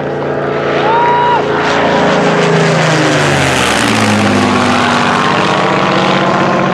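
Supermarine Spitfire's V12 piston engine running as the fighter flies low overhead, growing louder about a second in, with its pitch dropping as it passes over.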